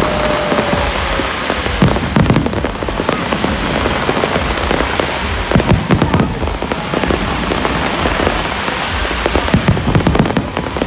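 Large fireworks display: dense, continuous crackling and popping of bursting shells, with heavier bangs a few times.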